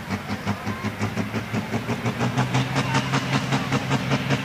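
Super Sport class pulling tractor's single-turbo diesel engine, rated at about 1500 PS, running hard under load on a pull. It has a rapid, even pulsing of about seven beats a second and grows steadily louder.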